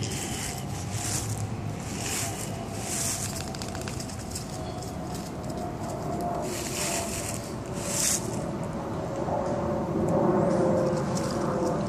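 Fallen leaves rustling in short bursts under footsteps on a leaf-covered sidewalk, over a steady engine hum that slowly falls in pitch.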